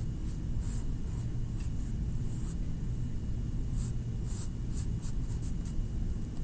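Pencil scratching on paper in short, irregular strokes as lines are drawn, over a steady low hum.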